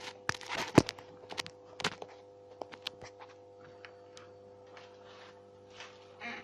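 Clicks and knocks of a camera being handled and set in place, the loudest a little under a second in, over a faint steady hum. A few short, softer noisy sounds follow near the end.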